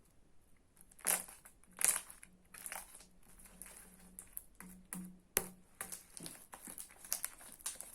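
Clear homemade slime being squeezed and kneaded by hand, giving off irregular sticky clicks and crackling pops.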